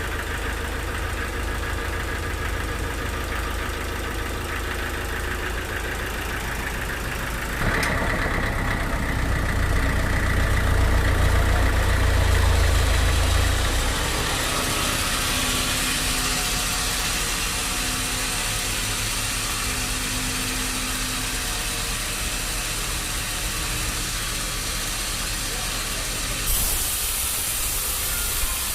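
Engine-driven sawmill machinery running steadily. About eight seconds in the sound jumps louder, with a heavier low rumble for several seconds, then settles into a steady run with more hiss.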